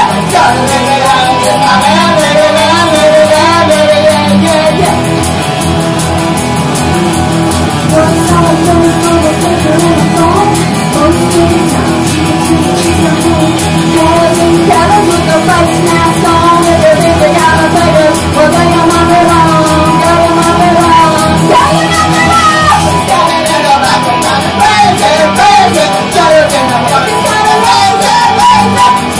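Live band music: a woman singing lead over her electric guitar, with a keyboard holding steady notes underneath.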